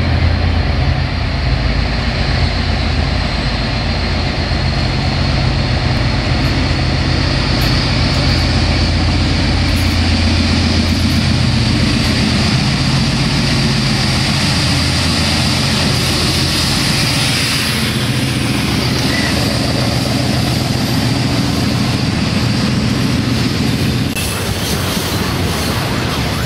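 Diesel-electric freight locomotive running under power as it comes through, its engine a deep steady drone. For the last third or so, freight wagons roll past with wheel and rail noise.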